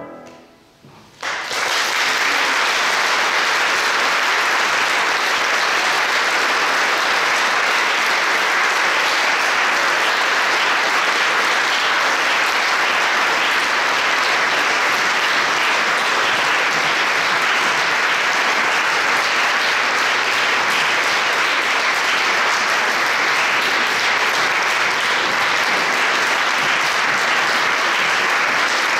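The last notes of a flute-and-piano piece fade out, and about a second in, a concert audience breaks into steady applause that goes on without letting up.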